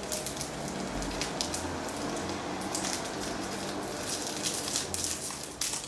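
A candy wrapper crinkling and crackling as it is torn and pulled open to get at a Super Lemon hard candy, a run of crackles with a few sharper ones.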